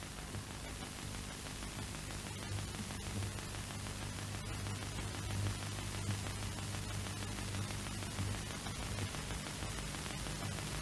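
Steady hiss with a low hum and faint scattered crackles: the background noise of an old film soundtrack.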